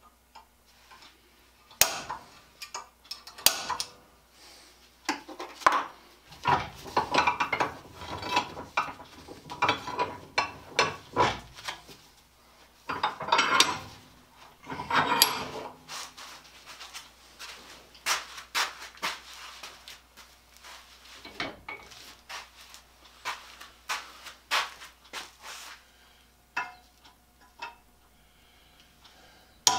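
Hand tools working a flat steel bar clamped in a vise: irregular metallic clinks, taps and short scrapes, starting about two seconds in.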